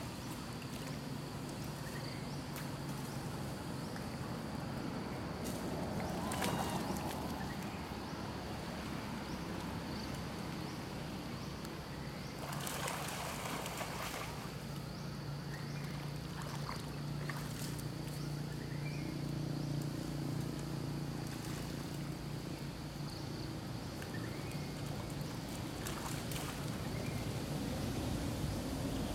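Outdoor ambience under a steady low motor hum, with a few faint short chirps and a brief hiss about thirteen seconds in.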